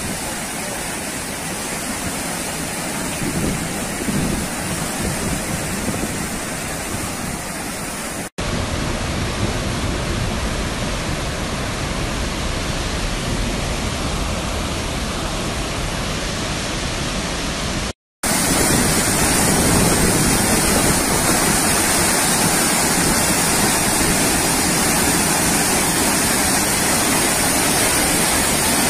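Muddy floodwater torrent rushing and cascading, a loud steady rush of water. The sound cuts out briefly twice, about eight and eighteen seconds in, as one clip gives way to the next.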